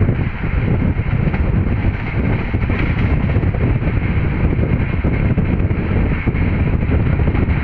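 Wind buffeting the microphone held out of a moving train's window, over the steady running noise of the train at speed.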